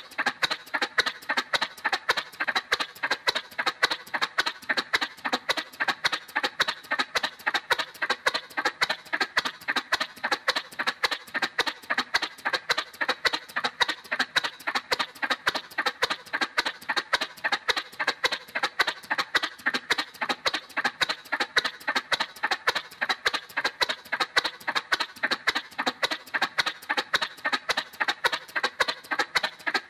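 Cartoon motorcycle sound effect: a quick, even putt-putt of sharp pops, about four a second, holding steady.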